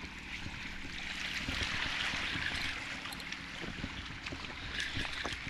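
Small waves washing at the water's edge in a steady hiss, with wind buffeting the microphone in low rumbles.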